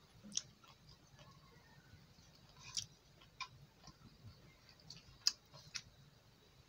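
Faint eating-by-hand sounds: a handful of scattered, sharp mouth clicks and smacks while chewing, with fingers working rice on a metal plate.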